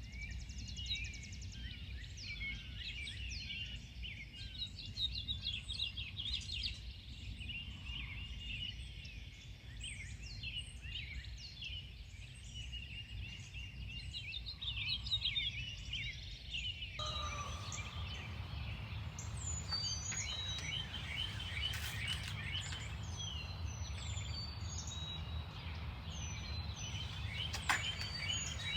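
Many songbirds chirping and singing over a steady low rumble, with the background changing abruptly about halfway through.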